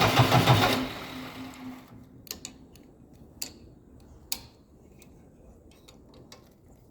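JCB 444 four-cylinder diesel engine, which has a misfire, running and then shut off about a second in, running down and falling silent within another second. After that, only a few separate sharp clicks.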